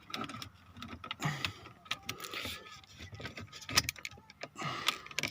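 Plastic console trim and a flathead screwdriver clicking, knocking and rattling irregularly as the trim is pried at to free a hidden retaining clip.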